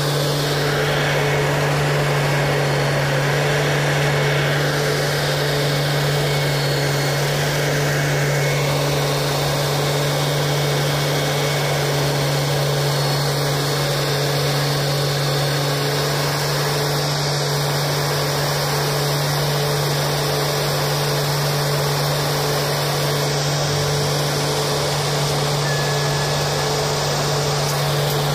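Diesel engine of a railway utility track vehicle (UTV) running steadily at a constant pitch.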